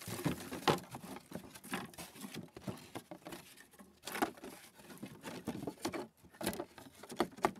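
A slatted wooden lid of old pallet boards being set down and shuffled into place on a wooden box: irregular wooden knocks, taps and scrapes with some rustling. The loudest knocks come about a second in, a little after four seconds, and near the end.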